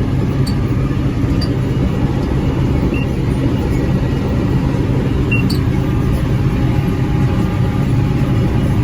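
Farm tractor engine running steadily with a New Holland BR 750 round baler working behind it, a loud, even drone with a few light ticks.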